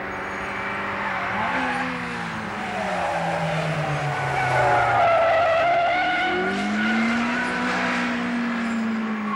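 Two 1.3-litre four-cylinder hatchbacks, a Suzuki Cultus (Swift) GT-i twin-cam and a Honda City CZ-i, racing through a corner. Engine pitch falls as they brake in, the tyres squeal in the middle, then the engines rise again as they accelerate out.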